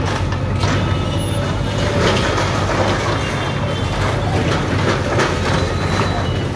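JCB backhoe loader's diesel engine running under load, with irregular crashes and scraping of brick and masonry rubble as its arm breaks down a shop front.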